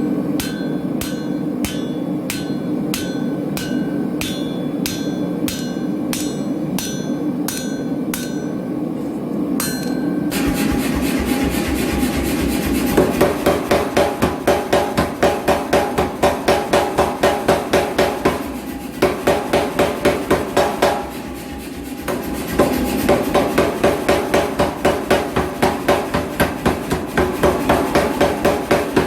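Hammer blows on hot steel at the anvil, ringing, about one and a half a second for the first ten seconds over a steady hum. Then a faster continuous pounding of about three blows a second, typical of a power hammer, breaking off briefly twice.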